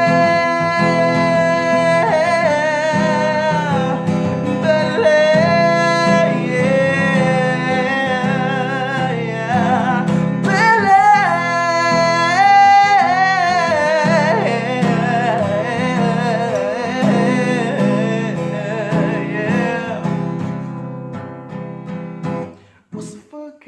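Acoustic guitar played with a voice singing wordless, sliding vocal runs over it, dying away over the last few seconds.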